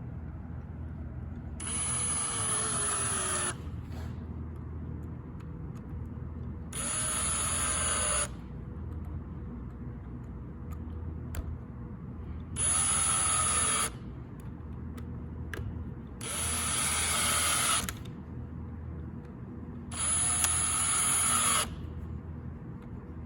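Cordless drill driving screws into a fertilizer pumper head, five short runs of a few seconds apart, the motor whine dropping in pitch under load during each run. Each screw is run in partway, not fully tightened.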